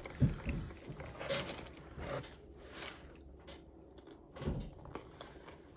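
Close-miked biting and chewing of crunchy fried food, irregular crisp crackles with a few louder bites, one near the start and one about four and a half seconds in.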